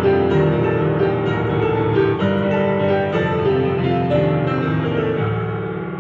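Piano played with both hands: chords with a moving melody on top, ending on a low chord about five seconds in that is held and slowly dies away.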